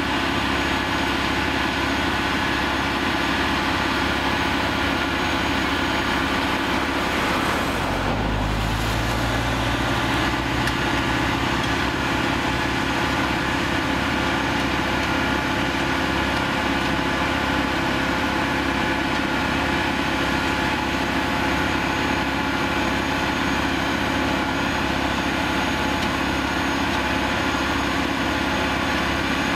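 Plasser & Theurer APT 1500 RA rail-mounted flash-butt welding machine running steadily at the rail with its engine and machinery. Its low tone shifts about eight seconds in.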